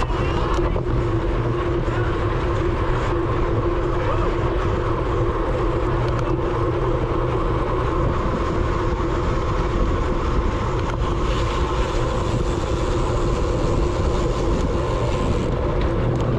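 Steady wind rush and road noise on a bicycle-mounted action camera at race speed, with a constant hum from the tyres and drivetrain running underneath.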